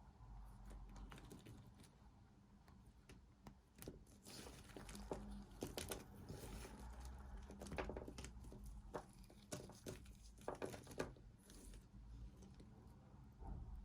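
A knife cutting into a bar of soap: a run of short, sharp clicks and scrapes, busiest in the middle of the stretch.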